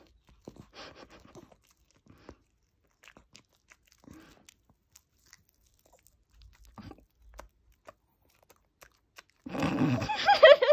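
A chihuahua chewing and gnawing at a big marshmallow: faint, scattered wet smacks and jaw clicks. Near the end a person's voice breaks in loudly.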